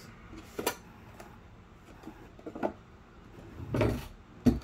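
Handling noise of a trading-card box being put away: a few scattered knocks and scrapes, a longer shuffle about four seconds in, then a sharp thump as it is set down.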